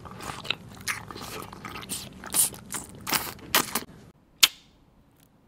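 Green gummy grape-cluster candy on a stick being bitten and chewed close to the mouth: many irregular crisp, wet crunches. About four seconds in they stop abruptly, followed by one sharp loud click.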